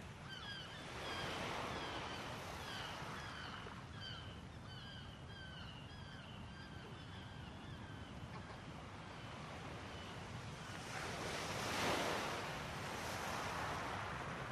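Sea waves washing in, swelling twice: about a second in and again near the end, the second swell the louder. Over the first half a bird calls in a quick series of short repeated chirps, about two a second, that fades out after about nine seconds.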